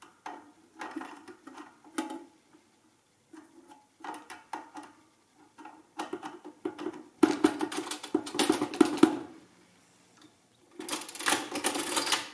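The hand crank lever of a 1913 Barrett Model 6 adding machine being worked, its mechanism clicking and clattering. Separate clicks come first, then two dense, louder runs of clatter, one about seven seconds in and one near the end.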